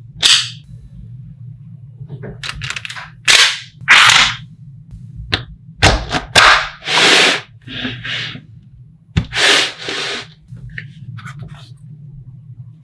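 Small magnetic balls clicking and snapping together, with irregular sharp clicks and short rattling bursts, over a steady low hum.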